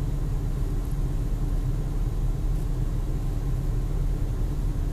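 Steady low rumble of an idling vehicle engine, with a faint steady hum over it.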